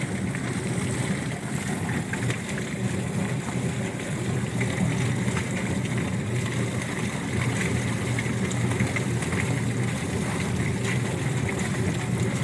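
Drum-style chicken plucker running steadily, its spinning rubber-fingered plate tumbling scalded birds against the drum to strip their feathers, with water spraying into the drum from a hose nozzle.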